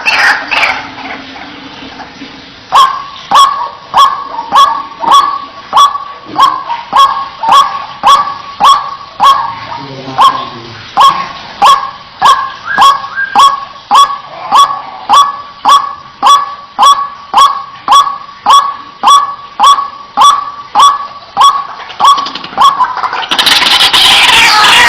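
White-breasted waterhen calling. Loud jumbled croaking fades out at the start. Then comes a long, very regular series of short, sharp single 'kwak' notes, about two a second, and near the end the loud, rapid croaking starts up again.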